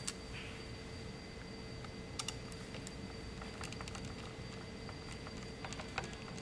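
Light clicks and taps from hand work on the scanner's parts, tools and small pieces being handled, coming in pairs and small clusters a second or two apart. Under them runs a steady hum with a thin high whine.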